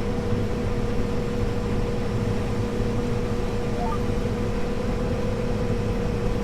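Combine harvester running while harvesting soybeans: a steady low drone of engine and machinery with a steady whine on top. About four seconds in come three faint, very short rising tones.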